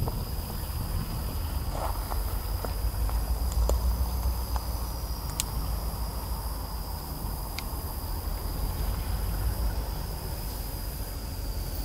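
A steady high-pitched drone of summer insects, with a low rumble underneath and a few faint clicks.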